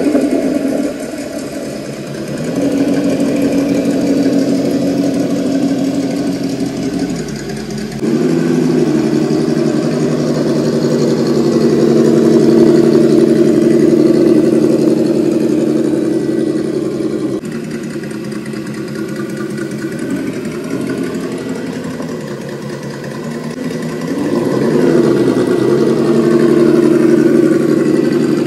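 An engine running, mostly at a steady pitch, with sudden jumps in level about 8 and 17 seconds in and a brief rise and fall in pitch near the end.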